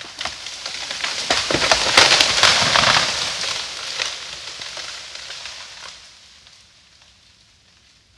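A felled tree crashing down through the surrounding trees: a swelling rush of snapping branches and thrashing leaves, loudest about two to three seconds in, then dying away over the next few seconds.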